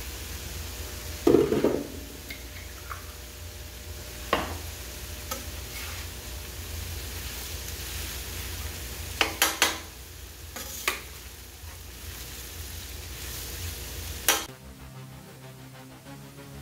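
Pasta, sausage, peppers and onions sizzling on a hot flat-top griddle while a metal spatula tosses them, with several sharp clanks of metal on metal, the loudest about a second in. Near the end the sizzling cuts away to background music.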